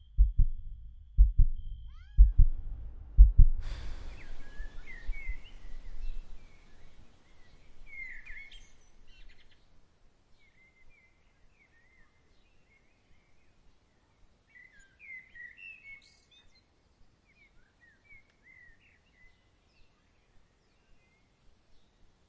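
Deep heartbeat-like thumps, about one a second, fading out over the first few seconds. Then sparse, short chirps of small birds, growing fainter and more scattered toward the end.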